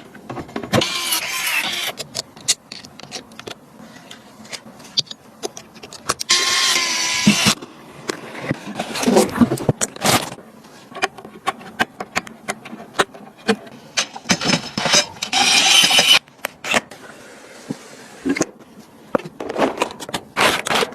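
Hands-on PC assembly sounds: many sharp clicks and knocks of computer parts being handled and fitted together, with a few longer noisy bursts lasting a second or two.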